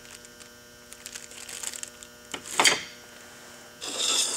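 Used chainsaw parts being handled and set down: faint clicks and rustling, a short sharp scrape about two and a half seconds in, then a burst of rustling near the end, over a steady electrical hum.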